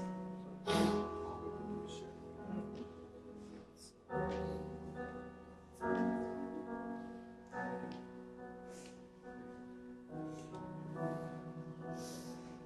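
Slow, soft piano music: held chords, each changing to the next every few seconds.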